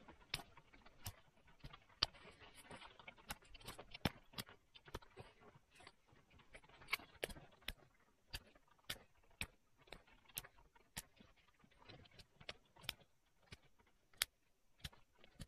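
Pressure flaking a Swedish flint axe with a moose antler tool: a run of sharp, irregular clicks, about one to two a second, as small flakes snap off the edge, with a soft scratchy noise between them in the first few seconds.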